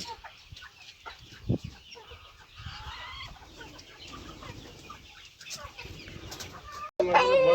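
Chickens clucking, with a sharp short sound about a second and a half in and a loud pitched call starting near the end.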